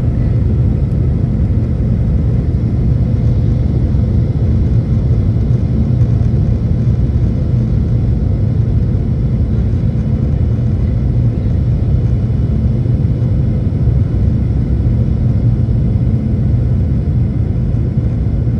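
Cabin noise of a Boeing 737 MAX on approach, heard from a seat beside the wing: its CFM LEAP-1B turbofans and the airflow make a steady low rumble, with a faint steady tone above it.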